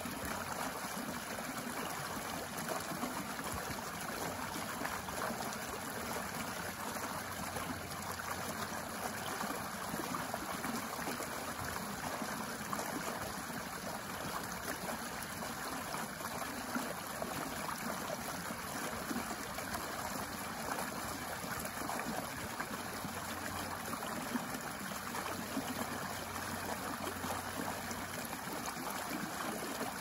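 Small shallow stream spilling over a low step into a pebbly pool, making a steady rush of running water.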